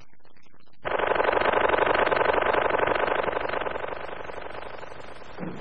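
A rapid, even mechanical rattle, like a small motor running, in a cartoon soundtrack. It starts about a second in and slowly fades away.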